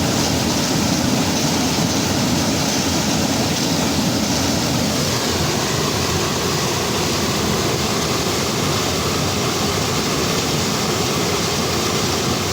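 Steady rush of a waterfall: an unbroken, even roar of falling water.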